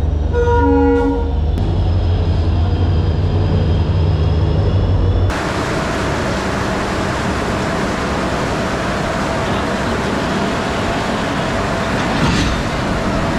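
Electric locomotive passing close by on the next track with a heavy low hum, sounding a short horn blast about half a second in. After about five seconds the sound changes abruptly to a steady hiss of heavy rain on the platform.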